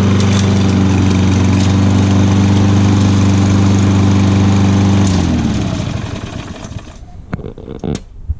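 Small lawn mower engine running at a steady speed, then shut off about five seconds in, its pitch sliding down as it coasts to a stop within about a second. A few faint clicks and knocks follow.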